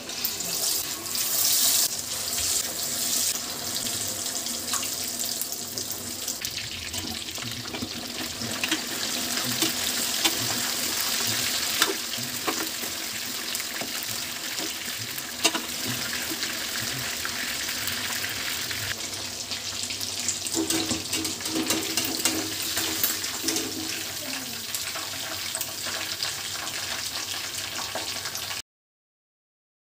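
Batter-coated chicken pieces deep-frying in hot oil: a loud, steady sizzle that starts suddenly as the pieces go into the oil, with a few sharp clicks along the way, and cuts off suddenly near the end.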